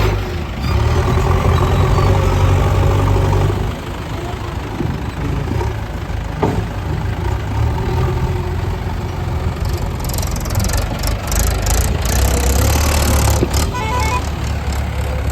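Heavy diesel machinery running with a low rumble, working harder for the first few seconds and then easing off, with scattered knocks and clatter near the end.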